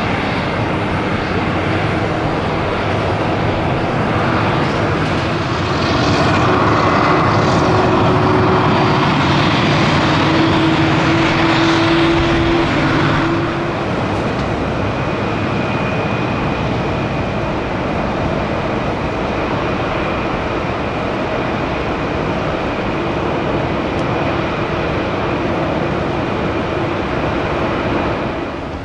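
Airbus A340-300's four CFM56-5C turbofan engines running at taxi power: a steady jet rumble with a thin whine. It grows louder about six seconds in as the aircraft passes closest, and eases off a little after about thirteen seconds.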